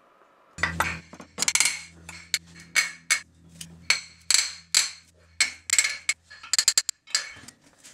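A small hammer repeatedly tapping the cast-iron gear case of a Rockwell UniDrill arm, in sharp ringing metallic strikes at an irregular two or three a second. The taps drive apart the two halves of the case, which the removed bolts no longer hold but tension pins still keep together.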